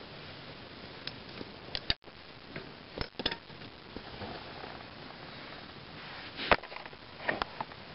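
Scattered sharp clicks and glassy knocks of candled honeycomb ice shards being knocked about over a steady low hiss. The loudest knock comes about six and a half seconds in.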